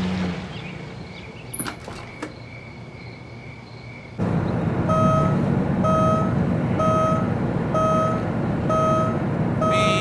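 Seat belt warning chime beeping about once a second, short even-pitched tones over a steady engine rumble that starts up suddenly about four seconds in; before that, two faint clicks.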